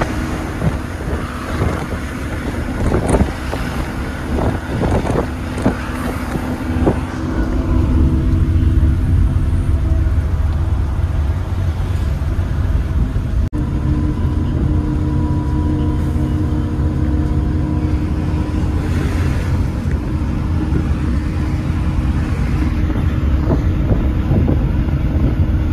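Sleeper bus running at speed on the highway, heard from inside the cabin: a steady low engine drone and road rumble. Short knocks and rattles come through for the first several seconds, then the rumble grows heavier and steadier.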